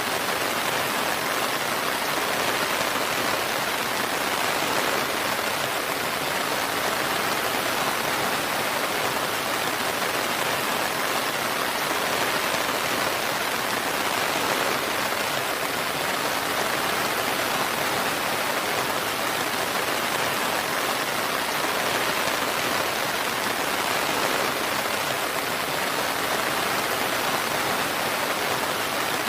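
Steady, continuous rain falling, an even hiss of drops with no thunder.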